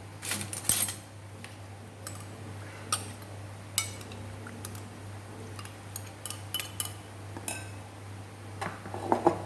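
Scattered clinks and taps of bowls and utensils being handled, several with a short ring, over a steady low hum.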